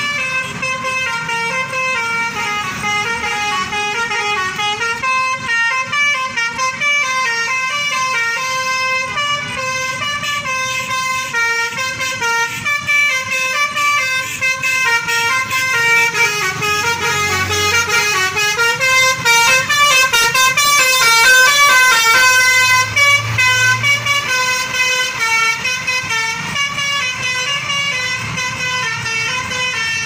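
Scania K410 tri-axle bus's "telolet" multi-tone musical horn of the Basuri type, playing a fast melody of constantly changing notes without a break. It grows louder and is loudest about two-thirds of the way through as the bus passes, then eases off a little.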